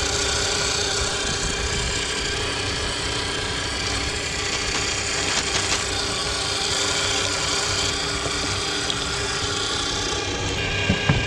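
Meat grinder grinding foil-wrapped chocolate coins: a steady grinding, rasping noise, with a few sharp knocks near the end.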